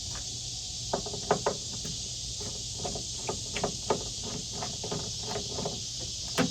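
Irregular light clicks and knocks of hands working a tail light assembly and its plug-in wiring connectors, with a sharper knock near the end.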